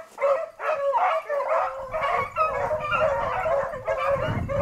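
A pack of beagles baying and yelping in chorus, many voices overlapping, as the hounds run a rabbit's track. A low rumble joins about two seconds in and grows louder near the end.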